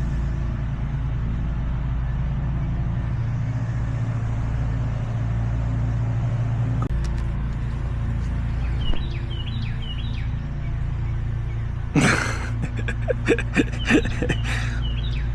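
A steady low machine hum. A few faint chirps come around the middle, and a quick run of sputtering clicks starts about three quarters of the way through.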